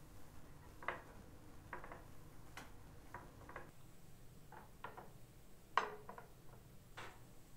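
Scattered light clicks and taps of plastic guide sticks being set down against a metal wire cooling rack and countertop, the sharpest click about six seconds in.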